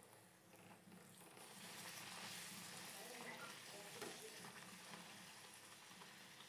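Hot oil sizzling quietly as a bhatura deep-fries in a wok, the hiss growing louder about a second and a half in.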